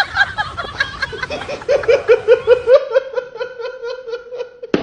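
A person laughing hard in a long run of quick 'ha' pulses, about five a second, which settle into an even, high-pitched cackle in the second half. A sharp click comes near the end.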